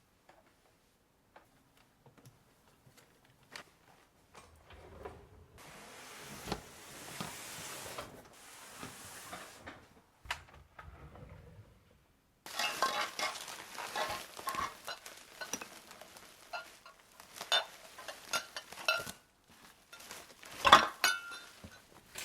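Dishes and utensils clattering and clinking as kitchenware is handled and put away, with many sharp knocks in the second half and the loudest one near the end.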